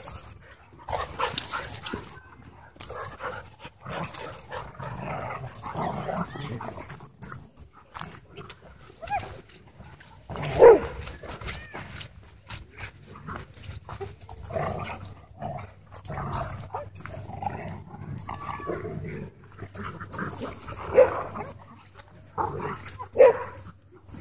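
Several dogs playing rough, with scattered barks and yips and the scuffle of their paws; the loudest call comes about ten and a half seconds in.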